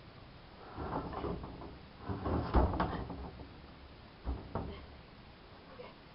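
A plywood roof sheet scraping and knocking against the wooden top of a chicken coop as it is slid into place: a rough scrape about a second in, a louder clatter of knocks in the middle, then two sharp knocks a little after four seconds.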